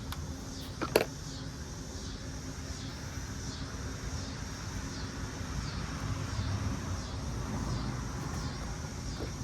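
A sharp click about a second in, as a new carbon shaft seal is worked by hand onto a bus air-conditioning compressor's shaft, over a steady low hum.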